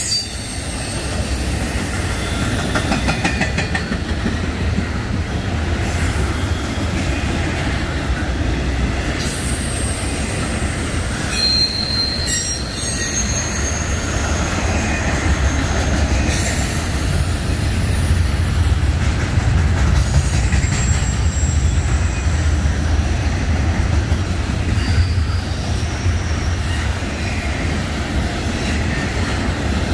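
Double-stack intermodal freight train rolling past: a steady rumble of well-car wheels on the rails, with high-pitched wheel squeal coming and going several times.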